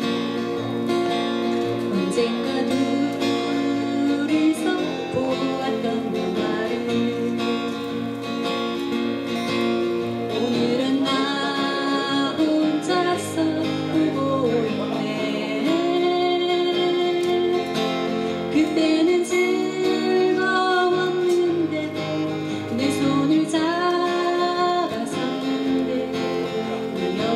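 Two acoustic guitars strumming and picking a slow ballad, with a singing voice carrying the melody over them, stronger from about halfway through.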